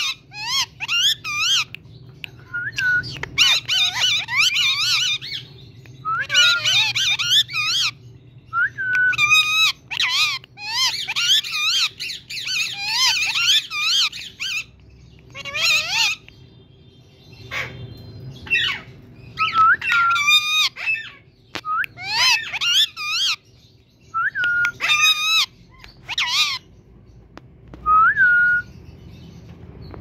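Green Indian ringneck parrot talking in a high-pitched, squeaky voice, repeating mimicked phrases such as 'Mithu beta' in short bursts with brief pauses between, mixed with short rising whistles.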